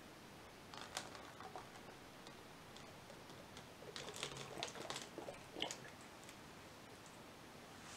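Faint light clicks and taps from hands handling an upside-down plastic water bottle capped with a mesh net, in two short clusters: about a second in, and again from about four to nearly six seconds in.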